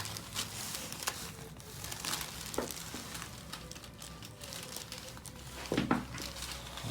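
Faint rustling and crinkling with scattered soft clicks, and a slightly louder pair of clicks near the end: handling noise of a patient and clothing on a chiropractic table.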